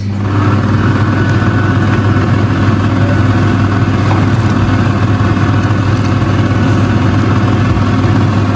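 A motor running steadily at one even pitch, loud, with a strong low hum.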